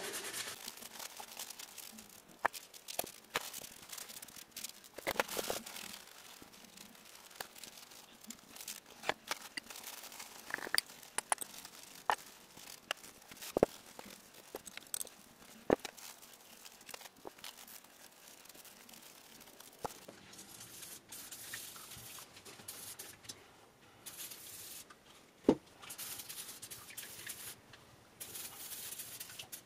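Paper towels and a cloth rag rustling and crinkling as gloved hands wipe rust-remover residue off metal vise parts, with scattered light clicks of the parts being handled. Near the end, hissing bursts of an aerosol paint stripper being sprayed onto the parts.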